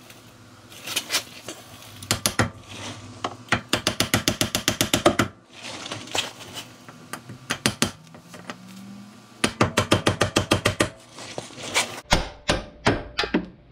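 Brass hammer striking the pressed-in studs on a Jeep Cherokee XJ's rear axle flange to drive them out. The blows come in bursts, some in quick runs of about five a second, with pauses between.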